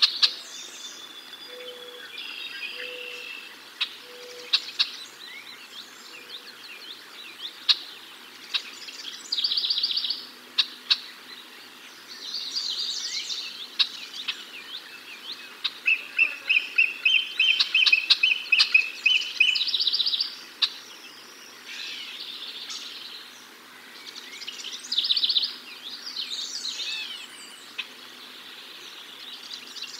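Wild songbirds singing and calling: a short song phrase repeated every few seconds, with sharp chips throughout and a dry trill a little past the middle. Four soft low notes come near the start.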